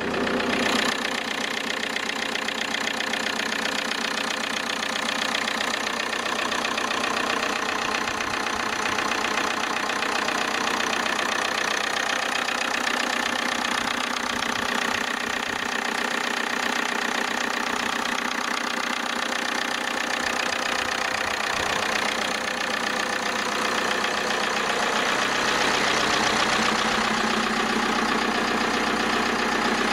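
Opel Zafira's 1.9 CDTi 8-valve four-cylinder diesel (Z19DT) idling steadily while still cold, shortly after a cold start at −6 °C.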